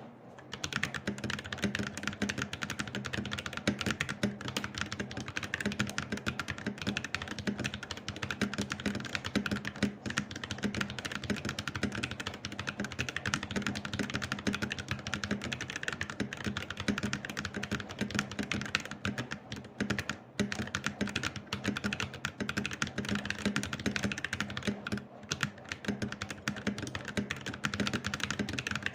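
Fast, continuous typing on a Noir N1 Pro mechanical keyboard with stock Ajazz Banana tactile switches (polycarbonate top, nylon bottom housing), a quick run of keystroke clacks with a few brief pauses.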